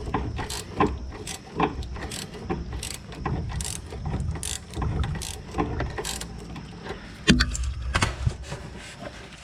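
Ratcheting wrench turning a sway bar link nut: repeated ratchet clicks and metal knocks at an uneven pace, with a louder knock about seven seconds in.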